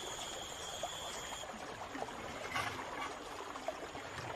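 Steady rushing of flooded river water. A thin, steady high whine runs over it and cuts off about a second and a half in.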